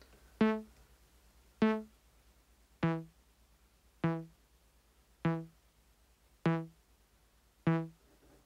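Eurorack synthesizer voice played by a step sequencer: seven short plucked notes, one about every 1.2 seconds, each fading quickly. The first two notes are pitched a little higher than the rest, as the sequencer's probability steps shift the pitch.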